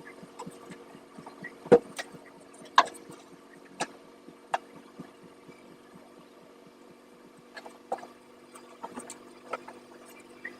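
Porch furniture being handled and set down: a series of irregular sharp knocks and clunks, the loudest two close together about two seconds in, over a steady low hum.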